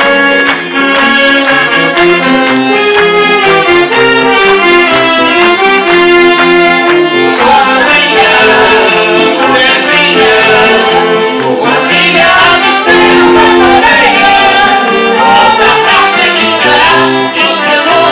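Accordion and fiddle band playing a lively tune for a Portuguese carnival dance. About seven seconds in, a wavering melody with vibrato comes in over the band.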